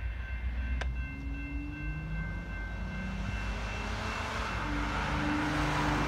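Distant freight locomotive horn sounding two long blasts, about a second in and again near the end, over the low rumble of the approaching train, which grows louder toward the end.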